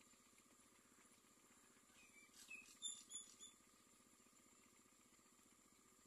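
Faint, high squeaky chirps from common myna nestlings begging at the nest: a quick cluster of short notes about two seconds in that stops after a second and a half, otherwise near silence.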